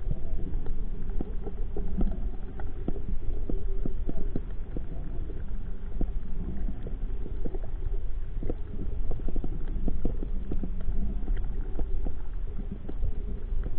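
Muffled sea water churning around the camera, a low rumble rising and falling, with many small clicks and knocks scattered through it.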